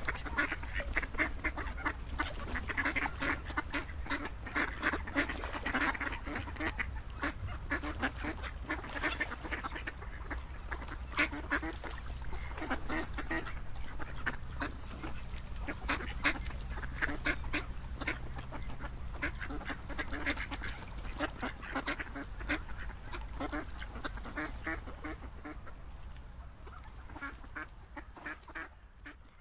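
A flock of ducks quacking, many short calls overlapping, over a steady low hum. The sound fades out over the last few seconds.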